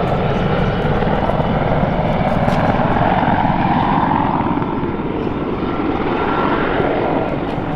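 AH-64 Apache attack helicopter flying by low on its landing approach: loud, steady rotor and turbine noise with a faint whine, easing off a little near the end.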